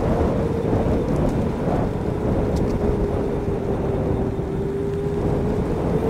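Huck Stinger 3000 electric motorbike being ridden: the motor's steady whine sags slowly in pitch and climbs again near the end as the throttle is worked. Heavy wind rumble on the microphone runs under it.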